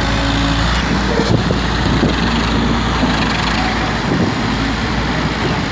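Massey Ferguson 240 tractor's three-cylinder diesel engine running steadily under load as it pulls a fully loaded water tanker through mud.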